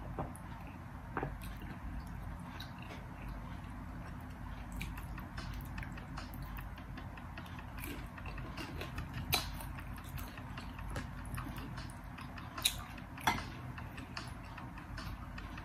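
Close-up eating sounds: chewing and swallowing, with scattered light clicks and a few sharp taps of a metal fork against a glass bowl, over a steady low hum.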